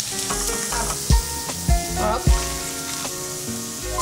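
Bacon slices sizzling in a frying pan, under background music with a steady beat.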